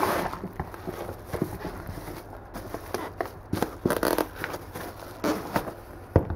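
Plastic mailer bag crinkling and rustling as it is pulled off a hard-shell zippered case, with irregular knocks and clicks of handling. A sharp knock near the end, the loudest sound, as the case is set down on the table.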